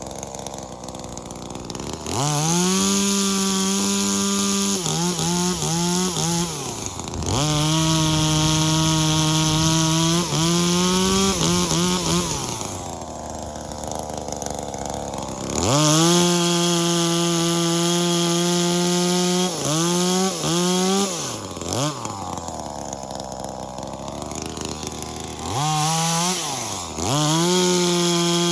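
V-Modest 2511T top-handle chainsaw, a clone of the Echo 2511T, with its small two-stroke engine being run during carburettor tuning. It is repeatedly revved from idle up to a steady high-speed scream, held for several seconds, then dropped back to idle, with a few quick throttle blips in between.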